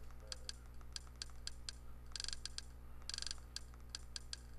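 Small clicks from the controls scrolling through an on-screen menu: single clicks about once or twice a second, with two short runs of rapid clicks about two and three seconds in. A steady low hum runs underneath.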